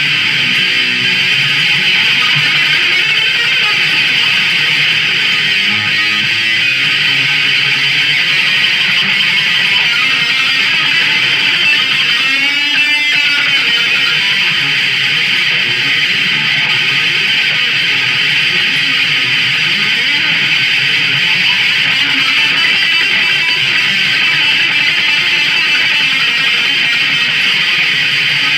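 Ibanez Artcore electric guitar played through an amplifier: a continuous passage of chords and single-note lines at a steady, loud level.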